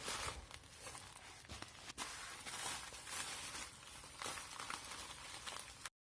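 A mail package being opened by hand: steady rustling and scraping of packaging with a few light knocks, cut off abruptly near the end.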